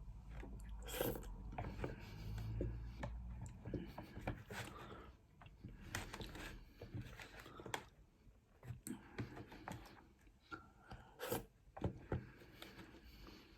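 Close eating sounds: chewing with small crunches, and scattered sharp clicks and scrapes of a utensil against the dish. The loudest clicks come about a second in and near eleven seconds.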